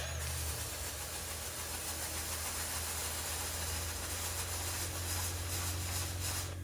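A loud, steady hiss that starts and stops abruptly, over a low steady hum.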